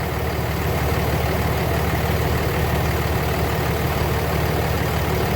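Car engine idling steadily, an even running sound with no change in speed.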